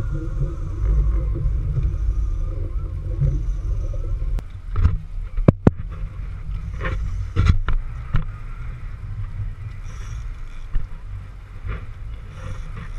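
Steady low rumble of wind and water on the microphone aboard a fishing boat, broken by a string of sharp knocks and clunks in the middle and two more near the end.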